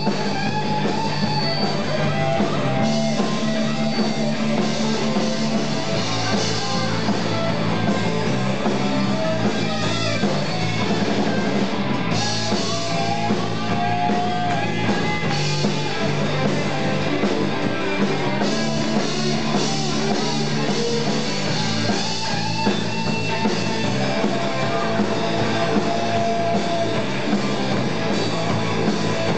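Live rock band playing an instrumental jam on electric guitars and a drum kit, with a guitar holding long lead notes over a low line that steps from note to note.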